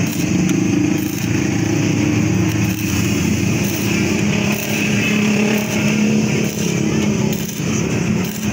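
Stick (arc) welding on a 70cc motorcycle's kick-start lever: the arc crackles steadily, with a steady low hum under it.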